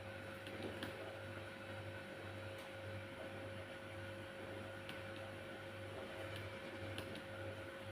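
Low steady electrical hum with a throb that pulses about twice a second, and a few faint light ticks.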